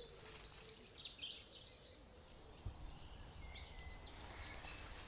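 Faint birdsong: scattered short chirps and brief high calls over a quiet background hiss.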